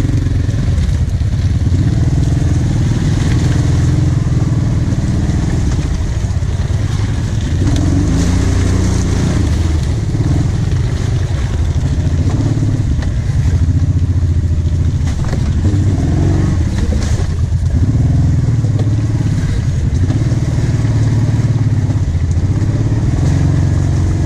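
ATV engine running at low speed on a rough trail, its pitch rising and falling as the throttle is worked, with a few sharp knocks about two-thirds of the way through.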